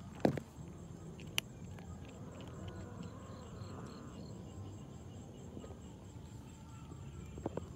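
Cats eating dry kibble from a metal tray, with a couple of sharp clicks near the start, over a steady high-pitched insect drone.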